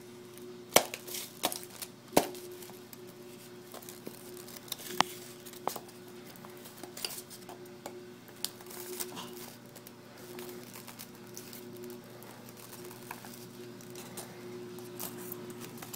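A metal knife blade scraping and clicking around the edge of a hardened plaster of Paris cast, crinkling the aluminium foil lining, to loosen the cast from its mould. Irregular sharp clicks and scrapes, loudest about a second and two seconds in, over a faint steady hum.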